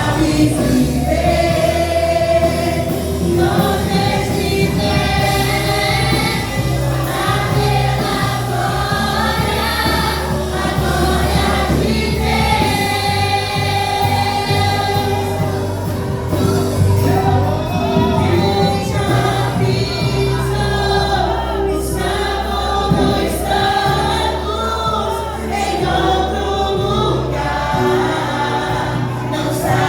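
Christian worship song: group singing over a band with sustained bass and keyboard.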